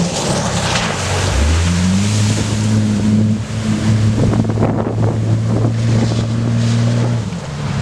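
Jeep Cherokee engine running while driving, with a steady rush of tyre and wind noise. The engine note shifts in pitch about one and a half seconds in.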